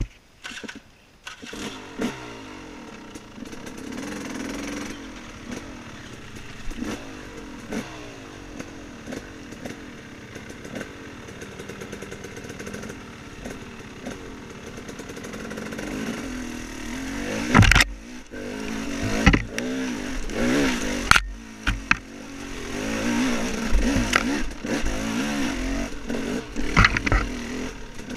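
Dirt bike engine running off-road, its pitch rising and falling as the throttle is opened and closed. Several sharp knocks come in the second half, the loudest of them about two-thirds of the way through.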